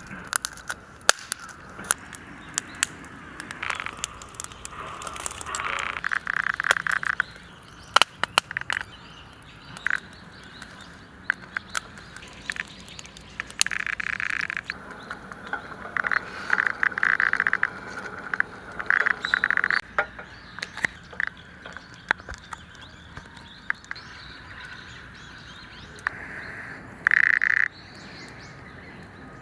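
Wood campfire crackling, with sharp pops scattered irregularly throughout. Repeated chirping animal calls, each about a second long, sound in the background.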